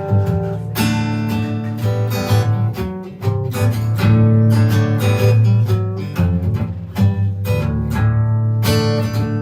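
Band playing live: strummed guitar chords over strong, sustained low notes, with no singing.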